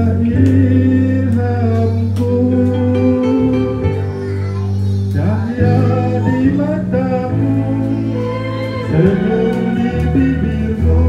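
A man singing karaoke into a microphone over a backing track with guitar and a steady bass line.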